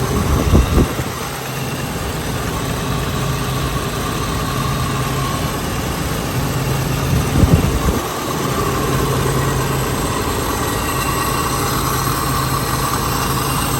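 Toyota 4Runner's 3.0-litre V6 engine idling steadily, running on its old distributor after a defective replacement distributor had caused arcing, misfiring and stalling. Two brief low thumps come about half a second in and again about seven and a half seconds in.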